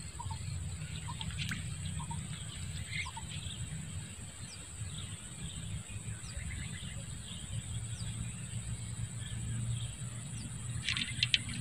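Birds chirping faintly: short high chirps repeated about once a second, over a steady low rumble.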